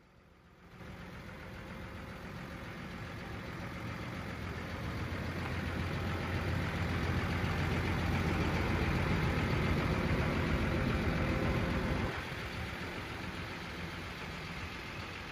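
Cummins ISB 6.7L turbo diesel engine of a Ford F750 truck idling steadily. It sets in suddenly, grows louder over the next several seconds, then drops abruptly to a lower level about twelve seconds in.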